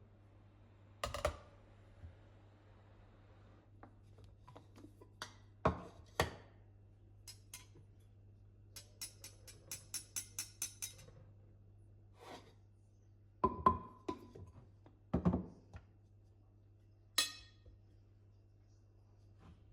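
Objects being handled: scattered knocks, clicks and clinks, with a quick run of small clicks about nine seconds in and a few sharper knocks later, over a low steady hum.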